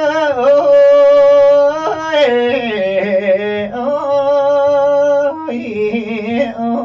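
Thai male singer holding long wordless notes with a strong waver, sliding down to lower notes about two seconds in and again just after five seconds.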